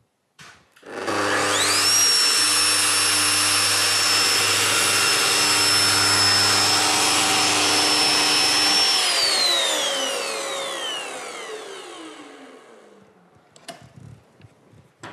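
Festool aluminium composite panel milling machine switched on, its motor whine rising to full speed in about a second and holding steady while it mills a groove in the panel, then switched off and winding down over about four seconds. A few light knocks near the end.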